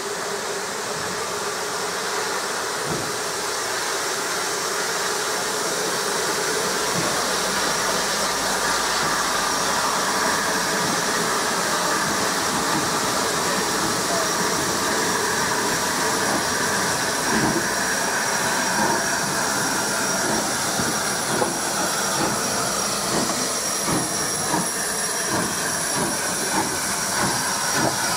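Merchant Navy class three-cylinder steam locomotive 35006 Peninsular & Oriental getting under way: a steady hiss of steam that slowly grows louder, joined over the second half by exhaust beats that come more often as it starts moving.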